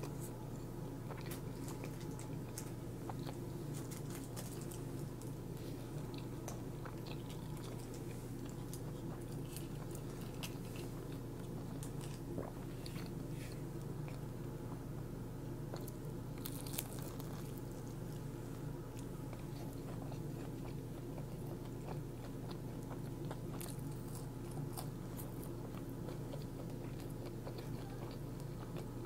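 A person chewing and biting food close to the microphone, with scattered crisp crunching clicks, over a steady low hum.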